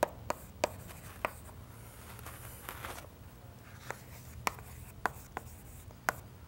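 Chalk writing on a chalkboard: a run of sharp taps as the chalk strikes the board stroke by stroke, with a softer scratchy stretch near the middle.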